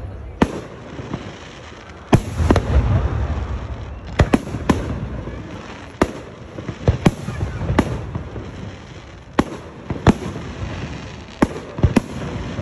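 Aerial firework shells bursting one after another: more than a dozen sharp bangs at irregular intervals, some in quick pairs, the louder ones followed by a low rolling rumble.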